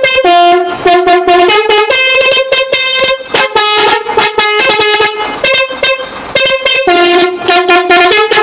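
Basuri musical multi-trumpet truck horn playing a tune of short notes that step between several pitches, with brief breaks, starting abruptly. One of its trumpets is broken.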